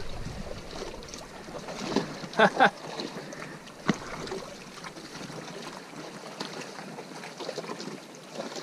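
Wind on the microphone over lapping water, with two short vocal cries about two and a half seconds in and a single sharp click near four seconds.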